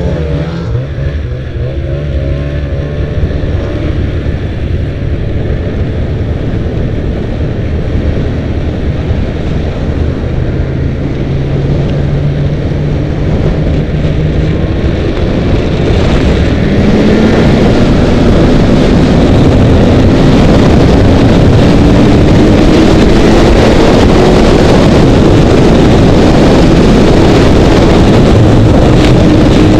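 Snowmobile engine running under way: it revs up right at the start, holds a steady note, then from about halfway through the note climbs and gets louder as it picks up speed, with wind rushing over the microphone.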